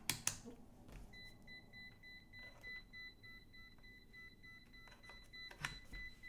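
Gossen Metrawatt DM52 digital multimeter: two sharp clicks, then a high electronic beep that pulses rapidly from about a second in and turns into a continuous tone near the end.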